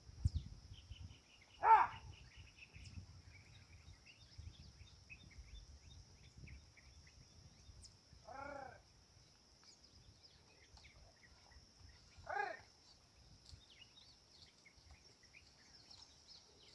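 Quiet farm-field ambience: a steady high insect drone and scattered small bird chirps. Three short animal calls break through, about two seconds in, in the middle and a few seconds later; the first is the loudest.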